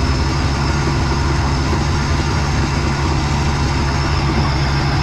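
A 50 hp two-stroke outboard motor running steadily while pushing the boat, an even engine drone with water and hull noise over it.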